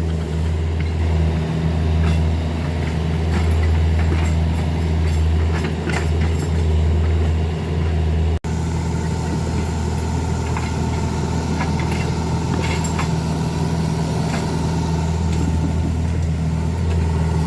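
Excavator diesel engine running steadily with a low, even drone, broken once by a brief dropout about halfway.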